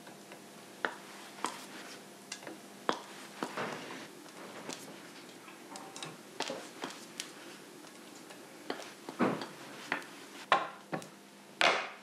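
Scattered light clicks and taps of a spatula and brush against a porcelain bowl and a lacquered plate as red lacquer is stirred and brushed on, about a dozen in all, with a louder scrape near the end.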